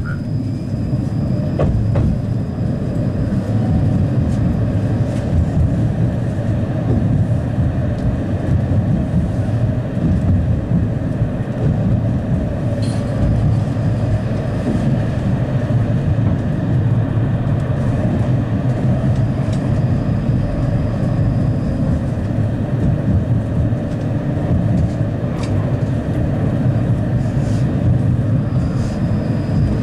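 A 71-931M "Vityaz-Moscow" low-floor tram under way, heard on board: a steady running rumble of wheels on rail. A faint high tone comes and goes, and there are two short sharp clicks, one about halfway through and one a few seconds before the end.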